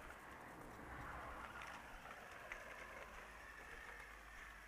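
Faint whine of a brushless-motor RC car driving, its pitch sliding up and down with speed over a light hiss.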